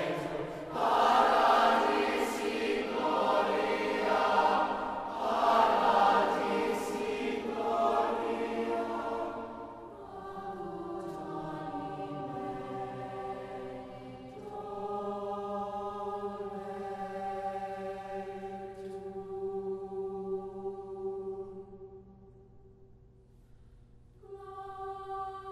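Choir singing. A loud, full passage for the first nine seconds or so gives way to softer held chords, which fade almost away near the end before a new chord comes in.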